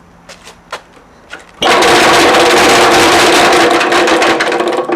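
Three-phase piston air compressor, its oil drained and some piston rings already gone, starts up abruptly about a second and a half in and runs loudly with a fast, dense clattering knock over a steady mechanical hum.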